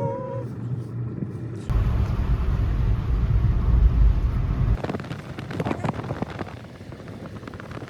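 Low rumbling noise that jumps up suddenly, stays loud for about three seconds, then cuts back to a quieter rumble.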